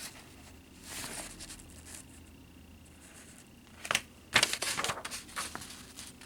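Paper and plastic rustling and crinkling as model kit contents are handled. There is a soft patch about a second in, then a louder cluster of crinkles near the end.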